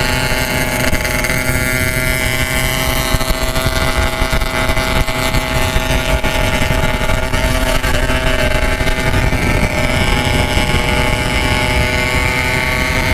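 Yamaha RX-King 135cc single-cylinder two-stroke running at a steady cruising speed through a 'packing power' aftermarket exhaust, its pitch holding nearly constant. Wind buffets the microphone throughout.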